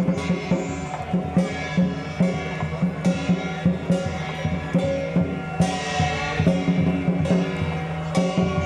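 Chinese lion dance percussion: a large barrel drum beaten in quick, uneven strokes, with ringing metal percussion sustained under it.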